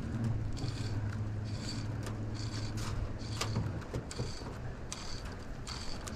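Fly line being stripped in by hand after a cast, a short hiss about once a second as the line is pulled through the rod guides. A low steady hum runs underneath and stops a little past halfway.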